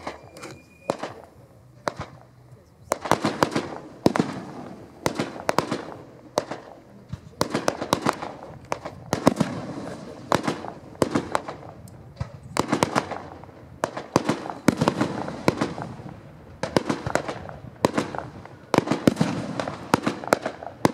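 Fireworks display: aerial shells bursting in sharp bangs and crackles, a few at first, then coming thick and fast in clusters every second or two from about three seconds in.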